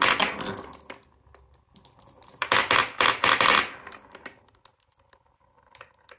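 Glass marbles clacking against each other and against wooden Cuboro blocks as a batch rolls out of the run and piles up in a corner. A dense rattle at the start and again about two and a half seconds in, thinning to scattered clicks near the end.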